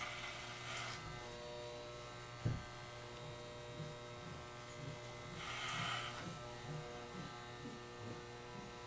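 Electric hair clippers running with a steady buzzing hum while cutting thick hair over a comb. Louder hissy bursts come where the blades bite into the hair, once right at the start and again around five to six seconds in. A single sharp click comes about two and a half seconds in.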